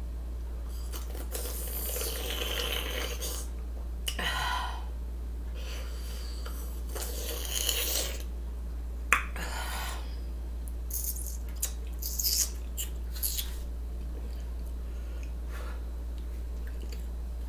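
Close-up eating sounds from someone eating a sausage sandwich: chewing and mouth noises in several short spells, a sharp click about nine seconds in, then a few small clicks, over a steady low hum.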